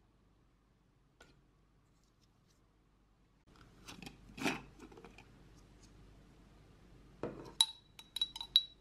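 A glass blender jar being handled and lifted from its base, with a knock about four and a half seconds in. Near the end come about five sharp, ringing clinks as the jar is tapped against the strainer's rim while the pandan pulp is poured out.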